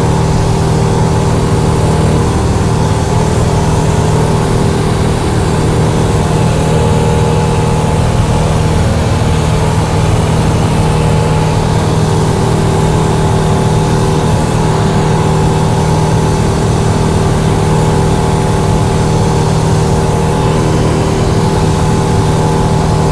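Cessna 172's piston engine and propeller running steadily in flight, heard loud from inside the cabin: a constant low drone with a few fixed tones above it and no change in speed.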